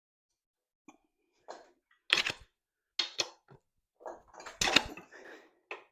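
Sharp metal clanks and scrapes in a handful of uneven bursts, starting about a second in, as a bar is worked through an intake port to pry a stuck cylinder head off a Ford 460 V8.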